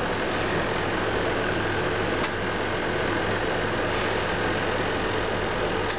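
Muller Martini Corona perfect binder running: a steady, dense mechanical clatter with a low steady hum beneath.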